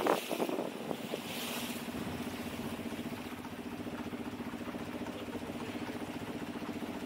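Longtail boat's engine running steadily, settling into an even, finely pulsing hum about two seconds in. A few loud rushing bursts of noise come in the first second.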